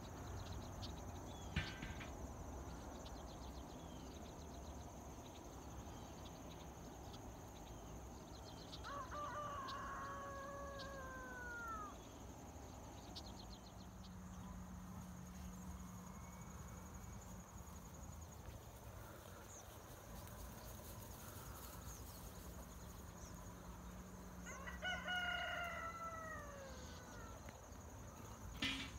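A rooster crowing twice, about fifteen seconds apart, each crow lasting about two and a half seconds and falling in pitch at the end. A steady high insect drone runs underneath.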